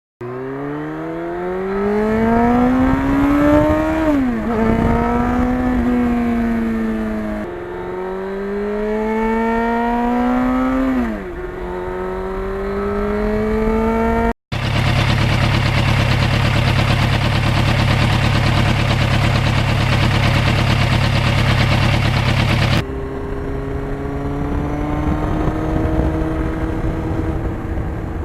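1991 Yamaha FZR1000's inline-four engine accelerating on the road, its revs climbing and then dropping sharply at the gear changes, three times over. After a brief dropout, a loud rushing noise covers it for several seconds, then the engine comes back pulling steadily with slowly rising revs.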